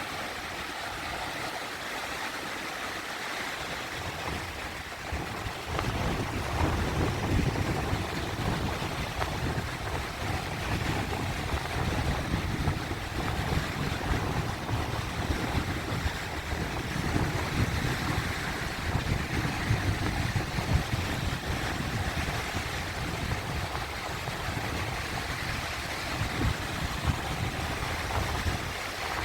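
Sea waves washing and churning: a continuous rush of water, with a low rumble that swells about six seconds in and keeps surging unevenly.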